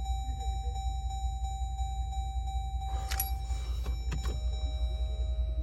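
A vehicle engine running steadily with a low rumble, keeping a dead battery on charge. A brief rustle and two sharp clicks come about three and four seconds in.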